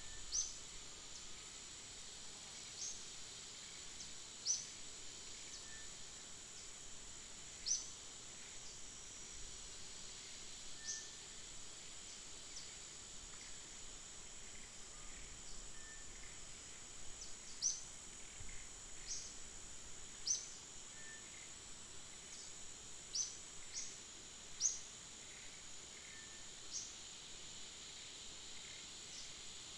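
Tropical forest ambience: a steady high-pitched insect drone, with short, sharp high bird chirps repeating every second or two.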